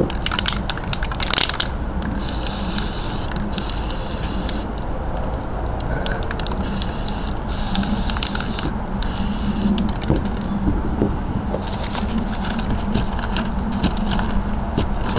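Aerosol spray-paint can hissing in about five short bursts of one to one and a half seconds each, between about two and ten seconds in. Bouts of quick rattling clicks come near the start and again in the last few seconds, over a steady low rumble.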